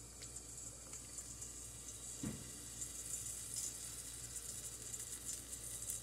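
Oil heating in a nonstick skillet on a gas burner, a faint sizzle with small crackles that grows louder. There is a single soft knock about two seconds in.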